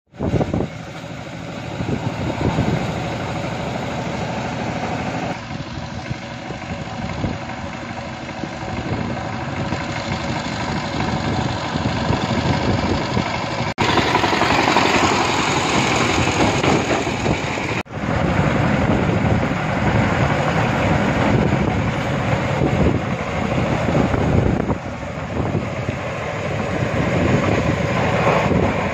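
Two-wheel hand tractor's single-cylinder diesel engine running steadily as it pulls a trailer along a dirt road, with the trailer rattling. The engine is louder and brighter for a few seconds in the middle.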